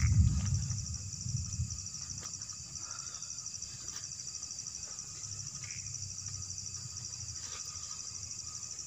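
Night insects trilling steadily in a high, fast-pulsing chorus, with a low rumble fading out over the first second or two.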